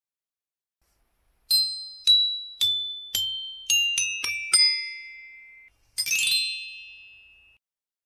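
Intro jingle of bell-like chime notes: about a second and a half in, eight struck notes step downward in pitch, coming faster as they go, each ringing on. Near the end a quick shimmering run of chimes rings out and fades.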